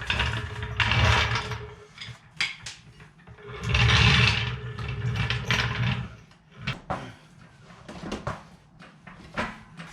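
Mechanical clatter and sharp clicks and knocks of equipment as a car is raised, with two louder rushes of noise, one at the start and one about four seconds in.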